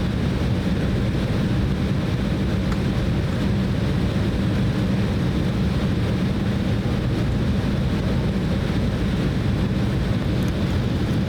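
Steady cabin rumble inside an Embraer E190 airliner: the jet engines and airflow make an even, low noise that neither rises nor falls.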